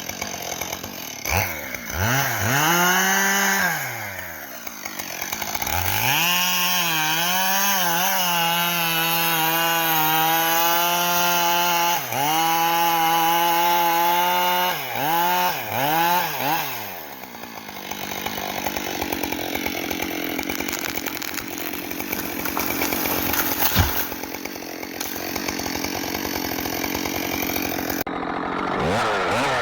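Chainsaw revving up and cutting into wood, its engine pitch holding high with repeated dips as it bogs in the cut. It then runs lower and rougher for a stretch, and revs up again after an abrupt break near the end.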